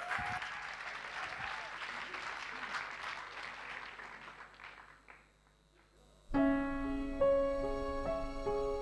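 Audience applauding, dying away about five seconds in. After a second of silence, a piano begins a slow introduction with sustained chords.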